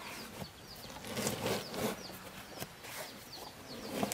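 Rubber tyre and inner tube being worked apart by hand, with irregular scuffing and rubbing noises, the loudest about a second in. Small birds chirp throughout, with farmyard chickens in the background.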